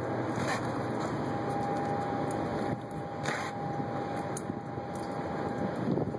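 Bernese mountain dog licking snow off a stone ledge, a few short wet lapping clicks, the loudest about three seconds in, over a steady hum of street noise.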